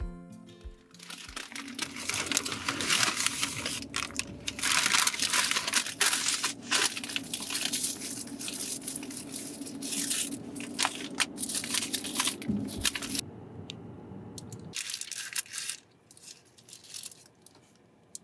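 McDonald's paper takeaway bag crinkling and rustling as it is handled and opened, in a long run of irregular crackles. Near the end the crinkling is sparser, from paper around a burger. A low steady hum runs beneath and stops a few seconds before the end.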